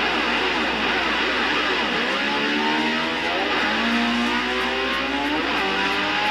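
Rock music: electric slide guitar gliding up and down in pitch in imitation of a motorcycle engine revving.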